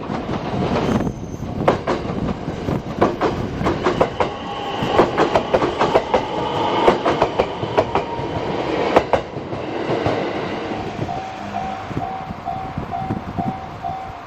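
Twilight Express Mizukaze train running through points: a dense run of wheel clicks over rail joints and switch frogs, with a steady metallic squeal from the wheels in the middle. As the train noise thins near the end, a level crossing bell pulses at a little over two dings a second.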